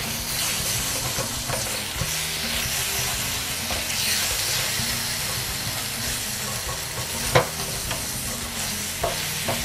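Seitán strips in chimichurri sizzling steadily in a hot frying pan while a wooden spatula stirs them, with two sharper knocks of the spatula against the pan about seven and nine seconds in.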